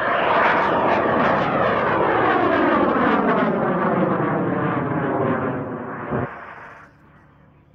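114 mm O-class solid rocket motor burning as a large amateur rocket climbs: a loud, rough roar whose pitch sweeps steadily downward. It drops off sharply about six seconds in and fades away.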